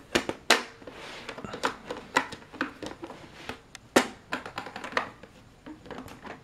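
Hinged plastic doors of a Thomas & Friends Tidmouth Sheds toy engine shed being swung shut one after another: a run of light plastic clicks and taps, the sharpest about half a second and four seconds in.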